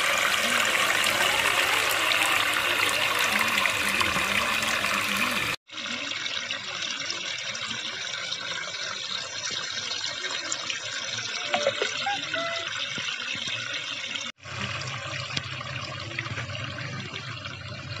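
A thin stream of water from a small cement tabletop fountain's spout splashing steadily into the water in its basin. The sound drops out briefly twice and is quieter after the first break.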